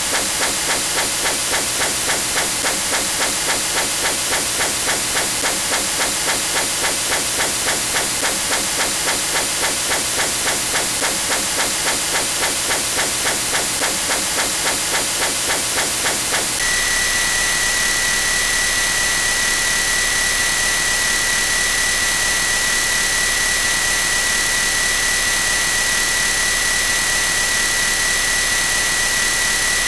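A loud, rhythmic hissing chug at a few beats a second, like machinery venting steam. About 17 seconds in it cuts abruptly to a steady roar with a high whine.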